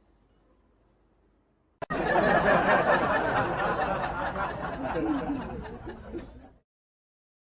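Several people laughing and talking at once, starting suddenly about two seconds in and cutting off abruptly near the end.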